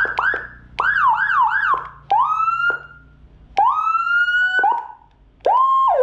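Whelen HHS2200-type 200-watt electronic siren module sounding through its speaker in short, really loud bursts as different tone buttons are pressed: a few quick up-and-down sweeps, two slow rising glides, then a steady tone that dips near the end.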